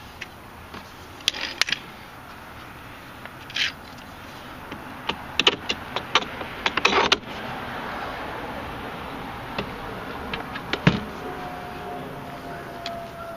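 Wood and hard plastic knocking and clattering as a wooden-framed table and a loose board are handled and set down on plastic bins. There is a quick run of sharp knocks near the middle and one dull thump later on.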